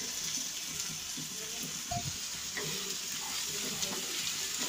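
Sliced onions and chopped green chillies sizzling steadily in hot oil in a frying pan while being stirred, the onions still raw and not yet softened.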